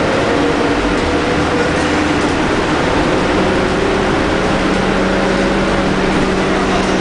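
Scania K310UD double-decker bus under way, heard from inside the lower deck: its DC9 engine and ZF Ecomat automatic driveline drone steadily with road noise. A few whining tones run through it; one drifts slightly lower in pitch, and a lower one comes in about three seconds in.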